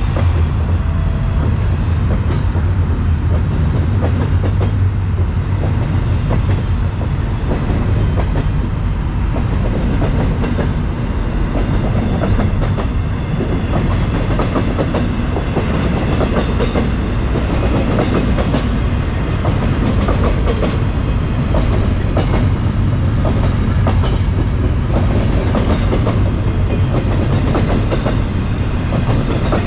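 GO Transit bilevel commuter train rolling alongside the platform: a steady low rumble with a run of clicks and clacks from the wheels over the rail joints.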